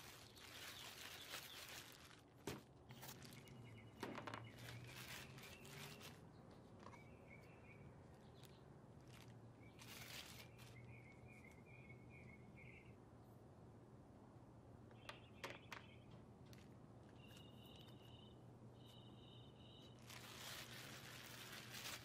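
Faint birdsong: birds chirping in short repeated phrases. Bursts of plastic bag rustling as a block of clay is handled and unwrapped, at the start and again near the end.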